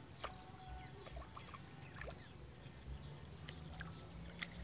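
Faint outdoor pond-bank ambience: a steady thin high tone over a low rumbling haze, broken by a few sharp clicks and some short faint chirps.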